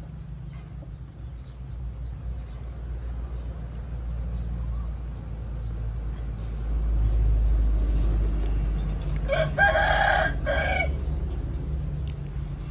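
A rooster crows once, a loud call of about a second and a half beginning about nine seconds in, over a steady low rumble.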